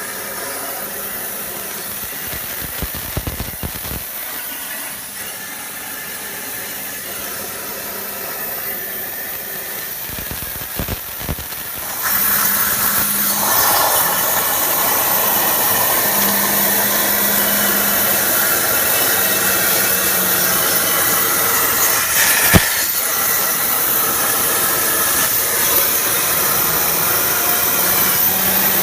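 MultiCam V-Series CNC plasma cutter cutting 1/4-inch plate: a steady hissing rush of the plasma jet that gets much louder about twelve seconds in and holds, with a few soft knocks before that and one sharp click later on.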